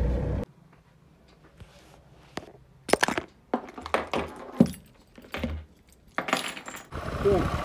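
A car key on a metal key ring and a power bank set down on a wooden desk: a series of sharp clinks and knocks over a few seconds. Car cabin road noise is heard for the first half second, then cuts off.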